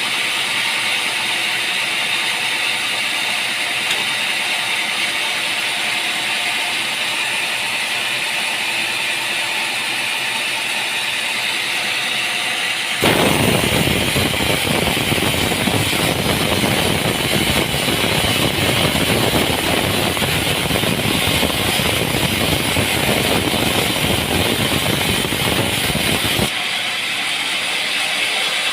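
Sawmill machinery running with a steady mechanical noise. About halfway in, a much louder, rougher noise starts suddenly and stops just as abruptly some thirteen seconds later.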